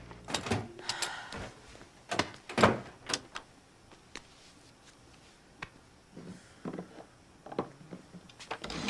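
Doors and drawers being opened and shut: a run of separate knocks and clunks, loudest and closest together in the first three seconds, then sparser and fainter.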